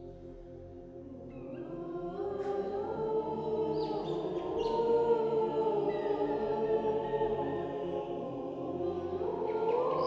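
Boys' choir singing a Swiss folk song: a soft held chord that swells louder from about a second and a half in.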